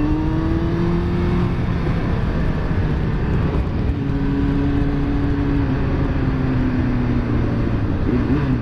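Yamaha FZ1's inline-four engine under way, rising in pitch over the first second and a half as it accelerates, then holding steady and easing down in pitch over the last few seconds.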